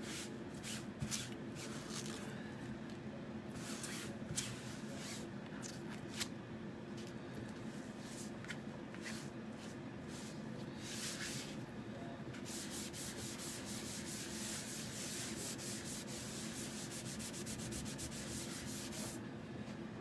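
A Clorox disinfecting wipe rubbing over a Chalk Couture stencil transfer to clean it, heard as scattered scrubbing strokes. About two-thirds of the way in, the strokes turn into a quick, steady scrubbing that stops shortly before the end.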